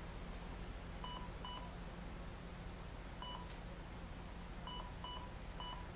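Key-press beeps from the HIAC 8011+ particle counter's touchscreen as letters are tapped in on its multi-tap keypad: six short, high beeps, two about a second in, one a little past three seconds, and three in quick succession near the end. A faint steady low hum lies underneath.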